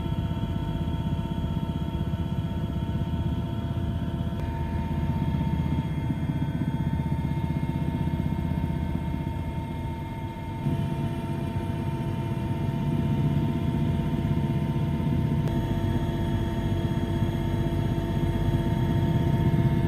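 Steady engine drone of a light aircraft heard from inside the cabin, with several constant whining tones over a low rumble; the sound shifts abruptly a few times where shots are joined.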